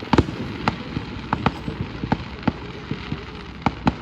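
Fireworks display going off: an irregular string of sharp bangs and pops, the loudest just after the start.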